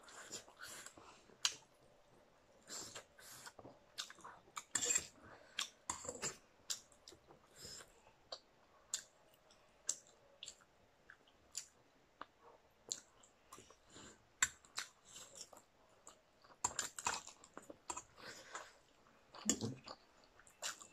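Close-up eating sounds of two people eating black-bean-sauce instant noodles: wet chewing, slurping and lip smacks, in irregular clicks and short smacking bursts.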